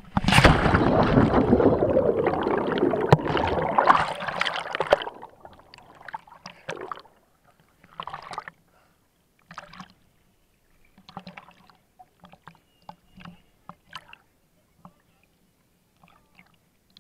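A diver plunging into the sea: a sudden loud splash and rush of water and bubbles lasting about five seconds. After it come scattered short splashes and gurgles of waves slapping over a head-mounted camera bobbing at the surface.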